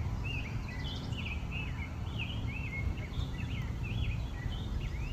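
A tiny songbird singing loudly: a continuous run of quick, bending chirps, about three a second.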